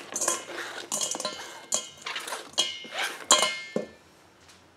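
Chunks of cooked chicken and a knife being swept off a cutting board into a stainless steel mixing bowl: a run of clinks and clatters with the metal bowl ringing briefly, dying away about four seconds in.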